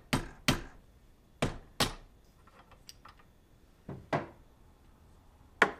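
Rubber mallet striking a socket held against a seized bearing to knock it out of a power steering idler pulley clamped in a vise: two pairs of sharp blows in the first two seconds. Then a few faint clicks, a duller knock, and one sharp knock near the end.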